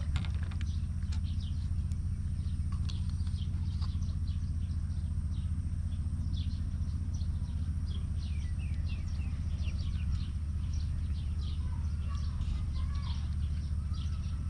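Small birds chirping and twittering in quick, scattered calls, with a few warbling notes near the end, over a steady low rumble.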